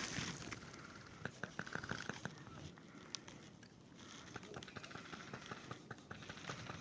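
Faint, irregular clicks and rustles, with faint distant voices.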